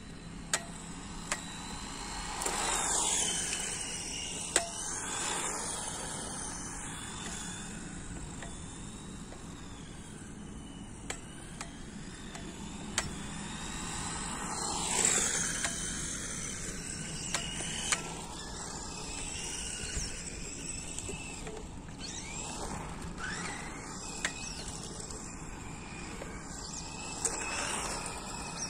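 Electric RC rally car (Celica GT-Four, 1997 Monte Carlo livery) on its stock motor: a high motor whine that rises and falls as it speeds up and slows, and sweeps sharply down in pitch about 3 and 15 seconds in. Sharp clicks from the stick-type transmitter come now and then.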